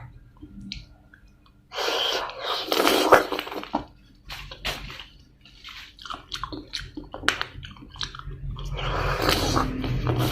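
Close-miked chewing of spicy som tam with raw blue crab and shrimp: wet smacking clicks and crunches, with two longer noisy stretches, about two seconds in and again near the end.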